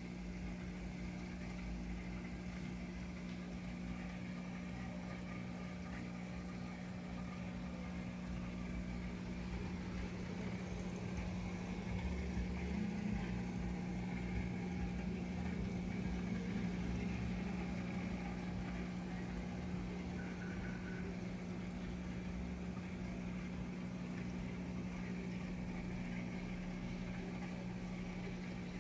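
Aquarium air pump humming steadily, with air bubbling up through the water from the bubbler.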